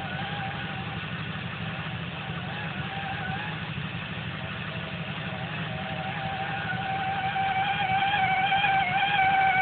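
1993 Lincoln Mark VIII's 4.6L V8 running, with a high, slightly wavering whine over the engine rumble that grows louder during the last few seconds. This whine is the weird sound the owner is asking about.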